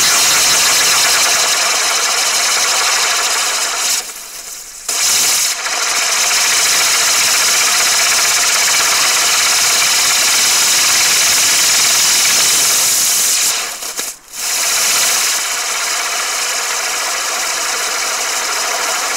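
Catherine wheel firework burning: a loud, steady hiss of spraying sparks, dipping briefly twice, about four and fourteen seconds in.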